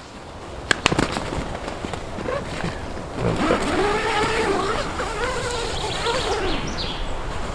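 A dog howling, drawn out and rising and falling in pitch several times from about three seconds in, over a steady rustling hiss. A few sharp clicks come about a second in.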